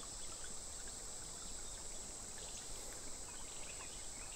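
Quiet creekside ambience: a steady high-pitched insect drone, like crickets, over the faint rush of the creek's flowing water.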